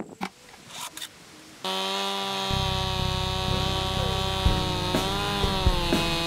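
A chainsaw running steadily at high revs. It starts about two seconds in, after a few light clicks and rustles, and dips slightly in pitch a little past the middle.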